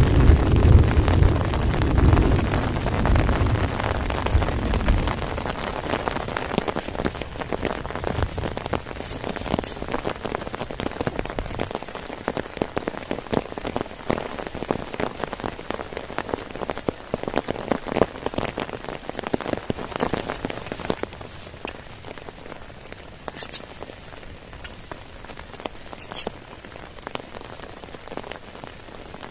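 Heavy rain falling, a dense patter of drops hitting surfaces. A low rumble underneath at the start dies away over the first ten seconds or so, leaving the rain lighter and quieter.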